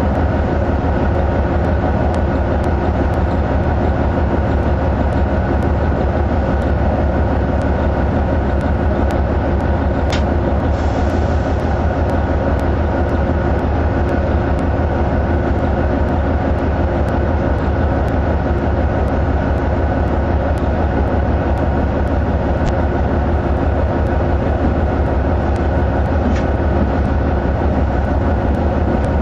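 GE C44AC (AC4400CW) locomotive's diesel engine running steadily under power, a loud, even low hum with no change in pitch. There is a short hiss about ten seconds in.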